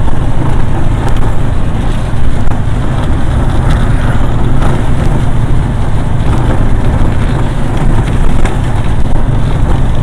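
CNG auto-rickshaw's small engine running loud and steady as it drives, heard from inside the cabin, with a constant rushing noise over it.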